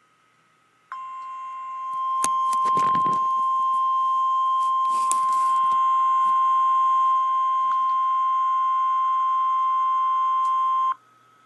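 NOAA Weather Radio alert tone: one steady, single-pitched beep, held for about ten seconds and cutting off abruptly near the end. It gets louder about two seconds in, and a few brief bursts of crackle cut across it.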